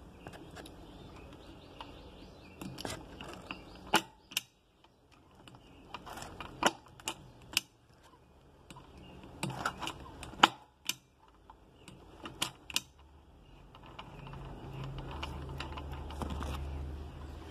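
Irregular sharp metallic clicks and knocks of a spanner and engine parts being handled on the exposed gearshift mechanism of an open Gilera Smash 110 motorcycle engine. A low rumble comes in near the end.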